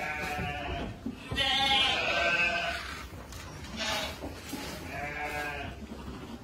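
A flock of sheep bleating, about four overlapping calls, the loudest about a second and a half in.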